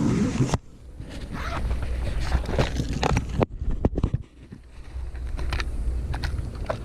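Handling noise close to the microphone: rustling, scraping and irregular clicks over a low rumble.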